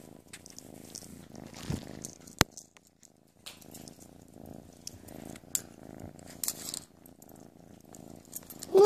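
White kitten purring steadily close to the microphone, with a sharp click about two and a half seconds in and a brief pause in the purr just after.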